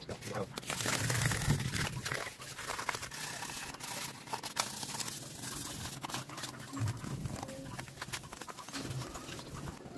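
Hand sanding a motorcycle wheel's metal hub and spokes with fine 1200-grit sandpaper: irregular scratchy rubbing with many short scrapes. The sanding scuffs the slick stock finish so the primer will stick.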